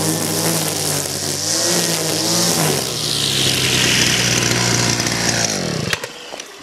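Husqvarna two-stroke brushcutter with a nylon-line trimmer head running at high revs while cutting grass, its engine speed rising and falling with the cuts. Near the end the revs fall away steeply and the engine stops about six seconds in.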